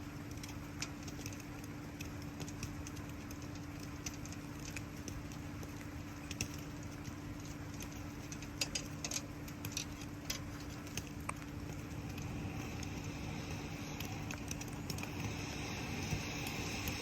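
Wood campfire crackling with scattered sharp pops over steady rain patter, with a steady low hum underneath. A higher hiss grows louder over the last few seconds.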